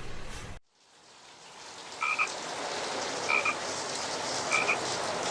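A frog calling, a short double note repeated about every second and a quarter over a steady hiss of night ambience. Before it, another sound cuts off suddenly, followed by a brief silence.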